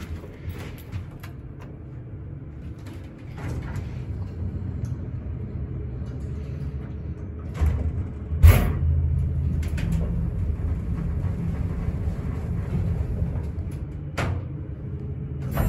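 Westinghouse traction elevator: a low rumble as the doors shut, then one loud thud about halfway through as the car starts off with a jolt, which the uploader puts down to it having sat idle for a while. The car then rides with a steady low hum, with a click near the end.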